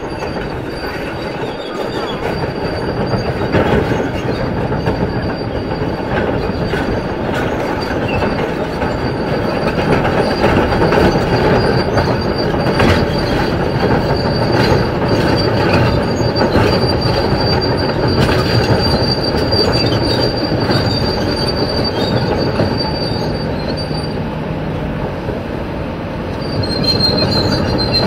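Kobelco SK500LC tracked excavator on the move, its steel tracks squealing and clanking: a steady high squeal runs throughout over continuous machine noise, broken by many short clanks.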